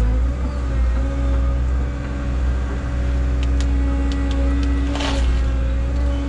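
Caterpillar 317 excavator's diesel engine and hydraulics running steadily under work, with a steady low drone and hum. A few light clicks come around three to four seconds in, then a short burst of noise about five seconds in.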